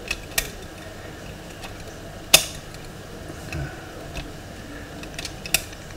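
Metal lock picks working inside a five-lever mortice lock: a few scattered light metallic clicks, the loudest about two seconds in, as the pick and tension tool move against the levers.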